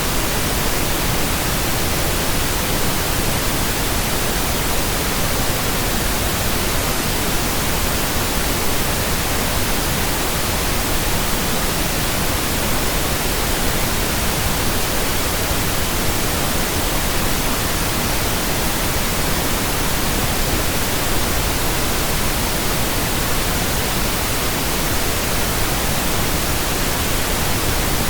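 Steady synthetic pink noise: an even, unbroken hiss across all pitches that does not change.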